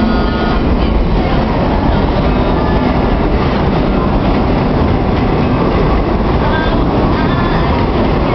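New York City subway train running through the station, a loud, steady noise that never lets up.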